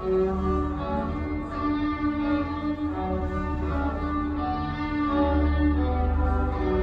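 Classical string music: violins and cellos playing held notes over a steady bass line.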